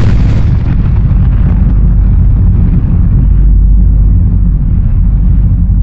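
Cinematic explosion sound effect for an exploding star: a sudden blast whose crackle fades within the first second into a loud, deep, steady rumble.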